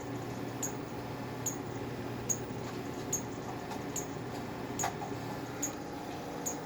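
Cutera LimeLight IPL handpiece firing repeatedly, a sharp high click a little more than once a second, over the steady hum of the running console.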